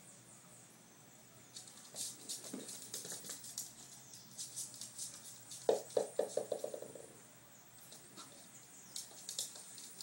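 A chihuahua's claws clicking and scrabbling on a hard floor as it plays with a ball. About halfway through, a run of about eight quick knocks fades out, like a small ball bouncing to rest.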